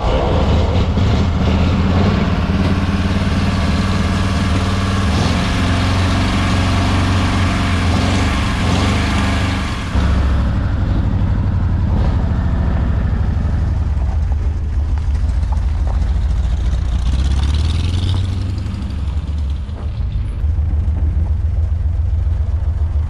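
Ford Model A's four-cylinder engine running, a steady low engine note with the cylinders' regular firing beat, clearest near the end.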